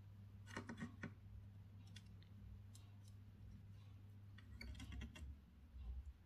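Near silence: a low steady hum with faint scattered clicks and light taps from soldering work on a TV power-supply circuit board, a small cluster about a second in and more toward the end.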